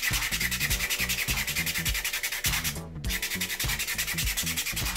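220-grit sandpaper rubbed by hand in quick back-and-forth strokes over a 3D-printed ABS+ plastic spinner, a dry scratchy rasping, with a brief pause about three seconds in.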